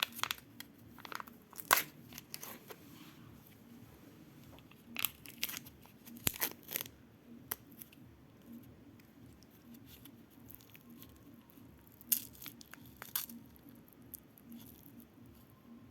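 Candy and toy wrappers being handled and torn open, crinkling and tearing in scattered short bursts with quiet stretches between.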